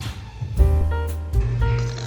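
Background music: a light, bouncy tune over held bass notes with a soft percussive beat.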